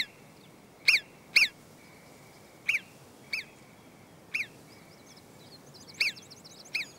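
Marmot alarm whistles: about eight short, sharp calls, each a quick falling note, spaced unevenly and fainter in the second half. They warn the colony of an eagle overhead and send the others into cover.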